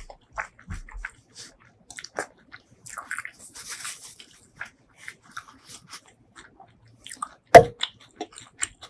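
Close-miked chewing and wet mouth sounds of a person eating, with scattered small smacks and clicks. A single sharp, much louder click comes about three quarters of the way through.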